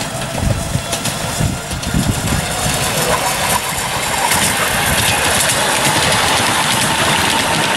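Miniature railway locomotive's engine running as it hauls a passenger train past. It gets louder over the first few seconds as the train comes close, then holds steady.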